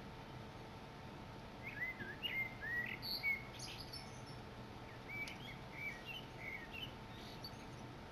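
Wild songbird singing: two short phrases of quick whistled, gliding notes, one about two seconds in and one about five seconds in, faint over a quiet background. It is a male's persistent song, which the listener takes for singing to attract females.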